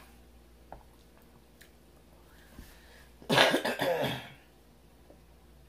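A woman coughs once to clear her throat about three seconds in. Before that there are only a couple of faint clicks from handling food.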